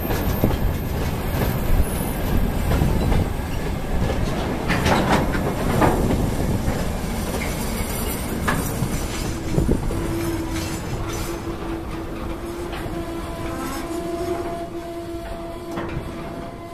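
Freight train of railway tank cars rolling past close by, wheels clattering over the rail joints. About nine or ten seconds in, a steady squealing tone from the wheels joins the rumble, and the sound eases slightly toward the end.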